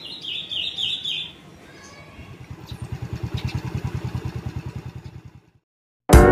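A bird gives a quick run of chirps, then a small motorcycle engine passes with an even pulsing beat that grows louder and fades away. Guitar music starts abruptly at the very end.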